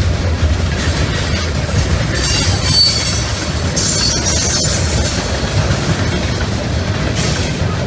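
Freight train's tank cars and covered hoppers rolling past close by: a steady low rumble with wheel clatter. High-pitched wheel squeal comes in short spells, about two seconds in, again around four seconds, and briefly near the end.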